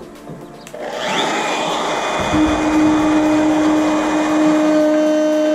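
Makita compact trim router switched on about a second in, its whine rising as the motor spins up, then running at a steady high speed with a steady hum, as the bit goes into the wood to rout a groove.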